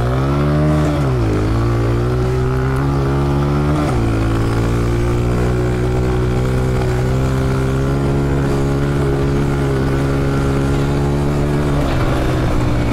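Honda CRF125F's single-cylinder four-stroke engine under throttle. The revs rise, dip about a second in and rise again, then fall sharply about four seconds in and hold nearly steady for the rest.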